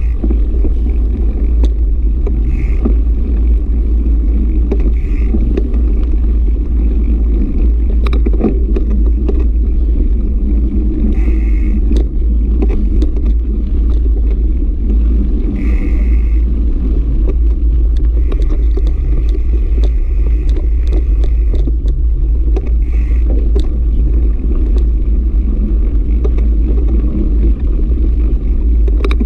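Mountain bike ridden over a sandy dirt track: a steady low wind rumble on the bike-mounted camera's microphone, with tyre noise and scattered knocks and rattles as the bike goes over bumps, and now and then a short higher buzz.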